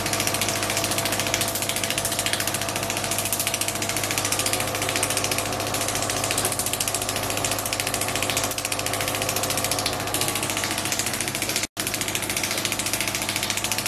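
X-Wave acoustic-wave (shockwave) body-contouring handpiece firing against the skin: a loud, rapid, steady clatter of taps over a steady hum, breaking off for an instant about twelve seconds in.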